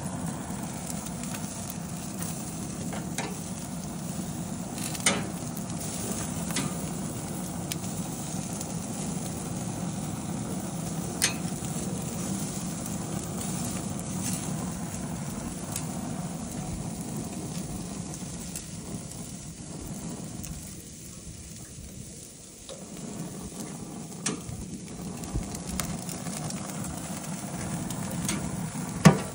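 Food sizzling on a hot gas grill, with a few sharp clicks of metal tongs against the grate.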